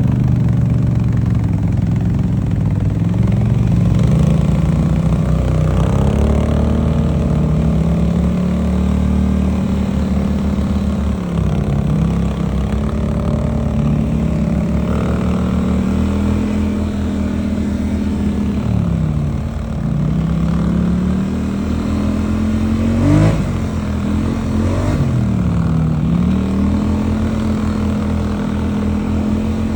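ATV engine running under way through snow, its note climbing in the first few seconds as it accelerates, then dropping sharply and picking back up about three times in the second half as the throttle is eased off and reopened.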